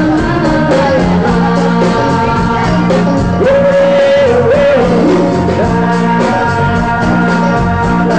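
Live rock band playing loudly with a singer over a steady drum beat; a long held note stands out about halfway through.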